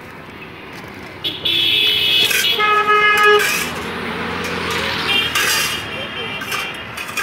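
Vehicle horns honking in street traffic. The loudest is a steady held note for about two seconds, starting a second and a half in, with a shorter honk near the end. Voices chatter in the background.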